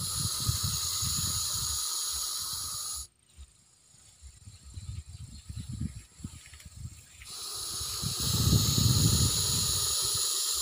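Russell's viper hissing, a defensive warning: one long hiss that cuts off sharply after about three seconds, then, after a pause of about four seconds with low irregular thumps, a second long hiss that carries on to the end.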